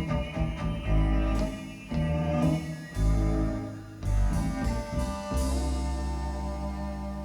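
Recorded music played back on a hi-fi system: the instrumental close of a song, with accented chords and deep bass notes, ending on a long held chord that slowly fades out.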